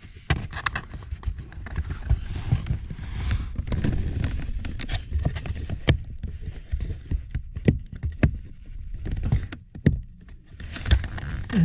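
Irregular clicks, knocks and rubbing of hands working a seat-cover clip into place beneath a seat cushion, against the seat's metal frame, over a steady low rumble.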